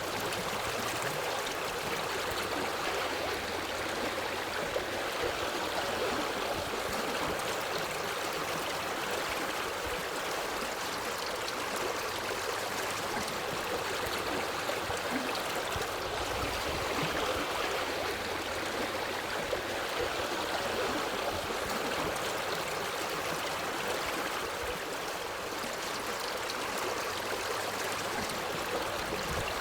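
Water of a stream flowing steadily, an even, unbroken rush of running water.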